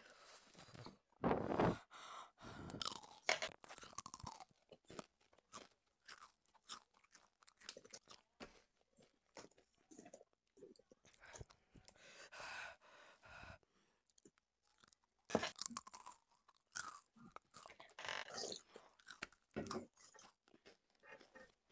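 A person crunching and chewing a spicy crunchy snack close to a headset microphone, with irregular crunches and mouth clicks. The crunches come in louder stretches near the start and again in the second half.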